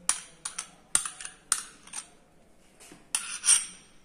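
Spoon knocking and scraping ghee into a nonstick frying pan: a run of sharp clicks and taps, with a louder scrape about three seconds in.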